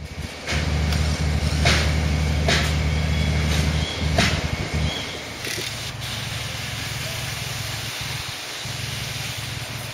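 Portable engine generator running steadily at a scrapping site, with a few sharp metal knocks from the hand dismantling of a train car. About five seconds in the steady hum drops to a quieter level.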